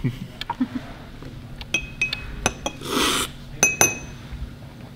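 Metal cupping spoons clinking against glasses of brewed coffee several times, each tap with a short high ring. About three seconds in there is a brief noisy rush, a slurp of coffee from a spoon, drawn in with air to spread the aroma.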